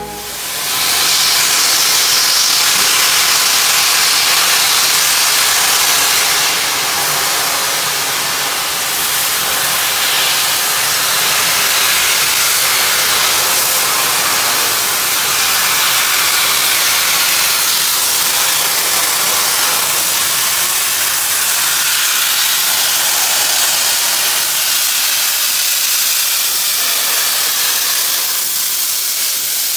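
Steam locomotive 3801, a streamlined NSW C38 class 4-6-2, venting steam in a loud, steady hiss.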